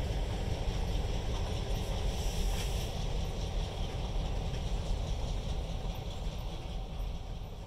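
Freight train of tank cars and a caboose rolling past, a steady low rumble of wheels on rail that slowly fades near the end as the caboose goes by.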